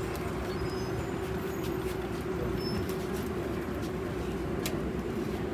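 Airport automated people-mover train running, heard from inside the car: a steady hum over a low rumble.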